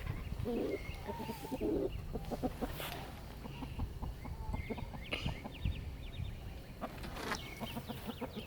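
Backyard hens clucking softly as they eat feed pellets, with scattered short ticks and brief low calls over a low rumble.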